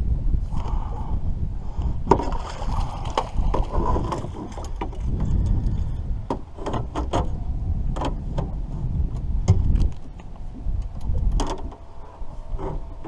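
Irregular knocks and clatter as a landing net with a catfish in it is handled against the side of an aluminum boat and brought aboard, over a steady low wind rumble on the microphone.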